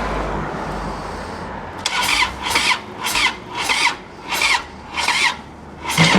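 Harley-Davidson Dyna Street Bob's V-twin being cranked on the electric starter, turning over slowly in about seven labouring pulses without firing: the battery is too flat to spin the engine fast enough to start. A steady rushing noise comes before the cranking begins.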